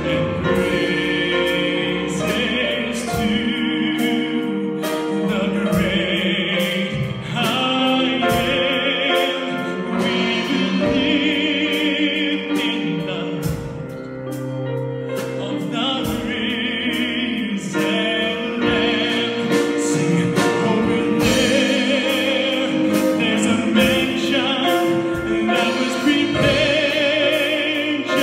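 Male solo singer performing a gospel song through a microphone and PA, with wide vibrato on held notes, over sustained instrumental accompaniment.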